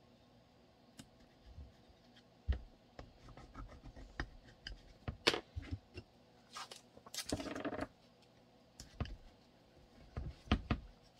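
Hands fitting small blocking pieces onto a pistol and weapon light for kydex holster forming: scattered clicks and short scrapes of plastic parts being handled, with a longer scrape a little past halfway.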